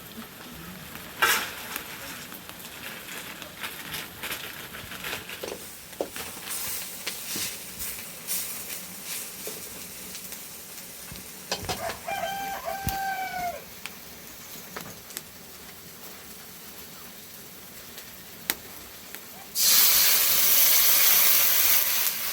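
A rooster crows once, a single drawn-out call about halfway through, among scattered clicks and rustling. Near the end a loud, steady hiss starts abruptly and is the loudest sound.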